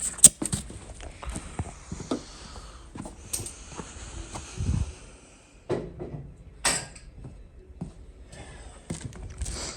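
Irregular knocks and clicks of hands and tools working at a Ford 9N tractor's newly mounted wheel.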